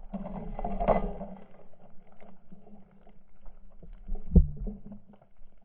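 Muffled underwater sound of a diver in the water, with a low steady hum, faint rustling and a single dull knock about four seconds in.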